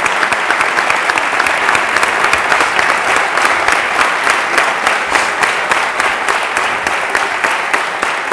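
Applause from a hall audience and the group on stage: many hands clapping in a dense, steady patter that eases slightly near the end.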